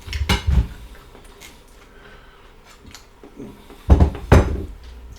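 Tableware being handled at a meal: spoons and dishes knocking and clinking. A few knocks come just after the start, and two louder knocks with a deep thud come about four seconds in.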